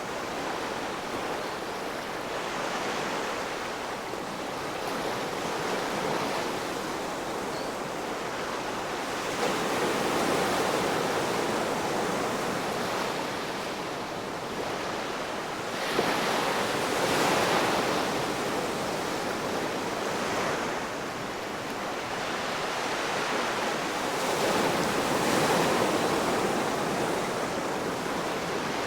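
Ocean waves breaking on a shore, a continuous wash of surf that swells and eases every several seconds, with louder surges about a third of the way in, just past halfway and near the end.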